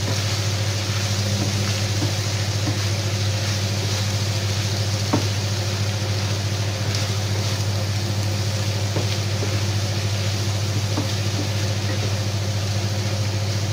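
Chickpeas and spinach sizzling in a hot frying pan as a wooden spatula stirs them, with a few faint taps of the spatula against the pan. A steady low hum runs underneath.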